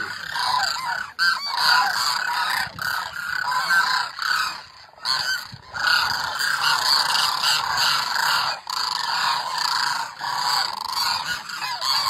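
A flock of cranes calling as it flies over: many overlapping calls that run on almost without a break.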